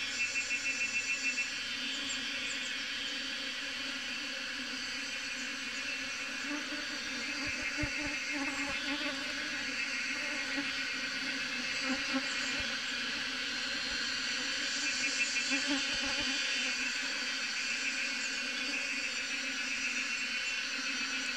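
Honey bee swarm buzzing: a steady low hum of many wingbeats from bees clustered and flying around the swarm. A higher, fast-pulsing chirr sounds over it at the start and again about two-thirds of the way through.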